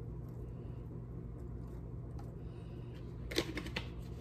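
Steady low hum in the background. A short run of light clicks and taps near the end comes from spice shaker jars being handled.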